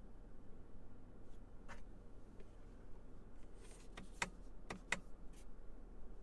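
A handful of short, light clicks over a low steady hum: one about two seconds in, then a quick run of four or five clicks about four to five and a half seconds in.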